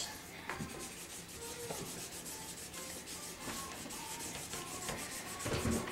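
Felt-tip markers rubbing and scratching on paper in quick, repeated colouring strokes, a soft steady scribbling. A dull low bump sounds near the end.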